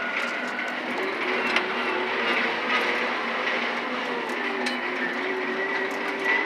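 Komatsu HM400 articulated dump truck heard from inside its cab while driving on a dirt haul road. The diesel engine and drivetrain run steadily under load, with a thin high whine and small rattles of the cab. The engine note shifts in pitch about halfway through.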